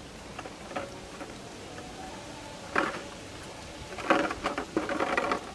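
Thin plastic water bottle crinkling and crackling as a baby monkey grabs and pushes it on the ground: a short loud crackle about halfway through, then a longer run of crackles near the end.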